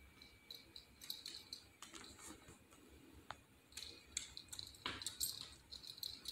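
A small Chorkie's claws clicking and tapping on a hardwood floor as it walks about sniffing, in faint irregular ticks that come thickest about four to five seconds in.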